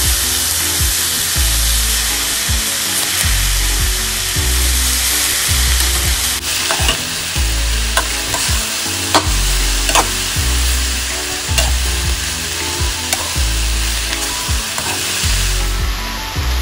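Sliced banana bud sizzling in hot oil in a frying pan as it is stir-fried. In the second half a spatula knocks and scrapes against the pan several times.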